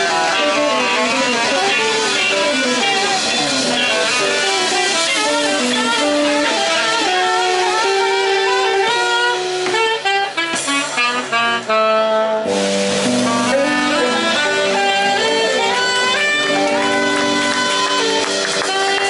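Live band playing, led by a saxophone soloing with a melody of held notes over electric guitars and drums. About halfway through the band breaks briefly with a few sharp hits before the saxophone comes back in.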